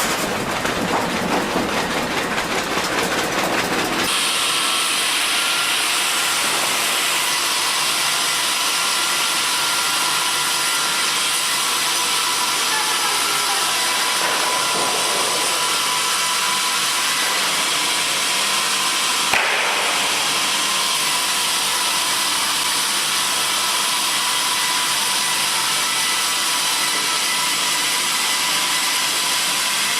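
Wood-cutting machinery running. For about the first four seconds an engine-like rumble, then an abrupt change to a steady high hiss with a faint even whine, typical of a saw working through timber.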